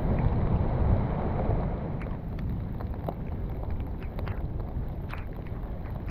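Wind buffeting the microphone in a storm, heaviest in the first second or so, with scattered light taps of rain on the recording device.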